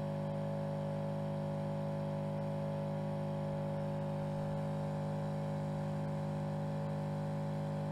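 A steady hum of several held tones, low and mid-pitched, that does not change at all.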